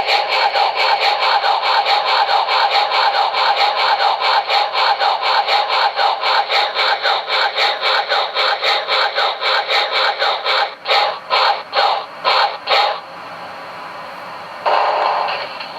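QSI Maxx Traxx 'Small Steam' model-train sound unit, played through a small speaker, sounding a steam locomotive running. Quick, even chuffs, about five a second, slow down about eleven seconds in and stop about two seconds later. A steady steam hiss follows and grows louder near the end.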